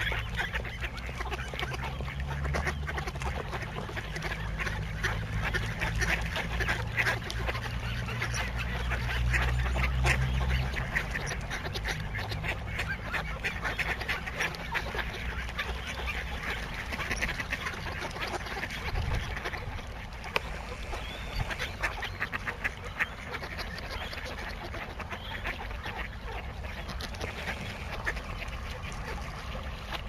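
A large flock of mallards quacking, many calls overlapping in a constant chatter. A low rumble sits under it for the first ten seconds or so.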